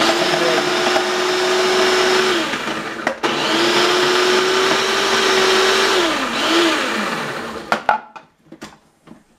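Electric food processor grinding cauliflower into rice, its motor running in pulses: a steady whir that cuts out for a moment about three seconds in, then runs again. Around six seconds the motor winds down with a falling pitch, and a few light clicks follow near the end as the machine is handled.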